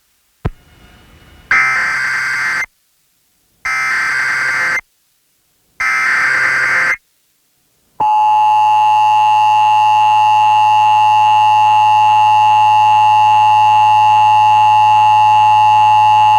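Emergency Alert System test tones received over FM radio: a click, then three buzzing one-second bursts of SAME digital header data about two seconds apart. About eight seconds in, the steady two-tone EAS attention signal (853 and 960 Hz) begins and holds for about eight seconds, marking the start of the Required Monthly Test.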